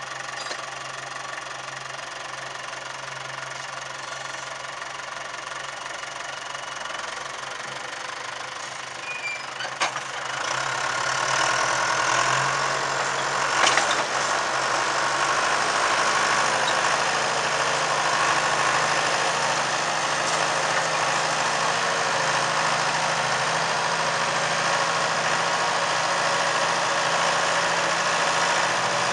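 John Deere tractor's diesel engine running steadily, then speeding up about ten seconds in and running louder under load as it pulls a ripper through the soil. A couple of brief knocks come as it moves off.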